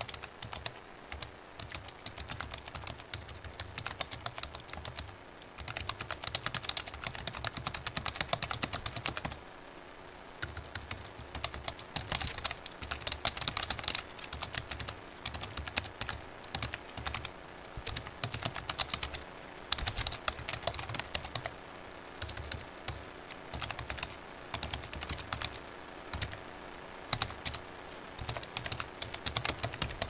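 Typing on a computer keyboard: fast runs of key clicks lasting a few seconds each, broken by short pauses.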